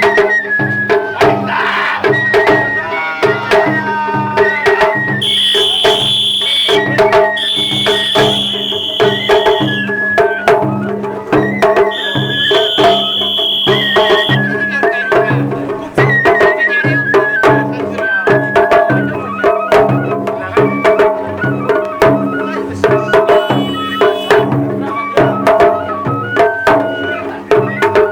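Japanese festival music: drums beating a steady, even rhythm under a moving flute-like melody. A shrill high tone is held three times for about two seconds each, from about five to fourteen seconds in.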